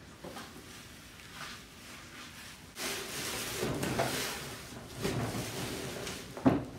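Thin plastic trash bag rustling and crinkling as it is handled and gathered up inside a large glass jar, starting about three seconds in, with a louder burst near the end.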